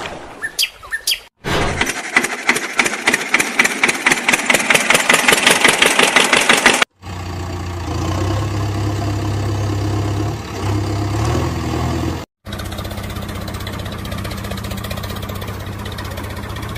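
Dubbed-in engine sound effects, in segments separated by abrupt cuts. A rapidly firing engine grows louder, then cuts to steady engine idling with a low hum.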